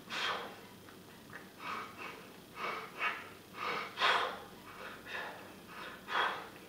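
A man blowing out hard, forceful breaths through pursed lips, about ten in a row at roughly one or two a second: the puffing of heavy exertion during repetitions of a forearm grip exercise.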